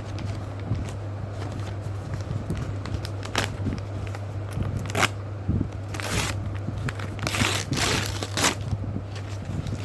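Parcel packaging being crinkled and torn open in a series of short rustles that come thicker from about six seconds in, over a steady low hum.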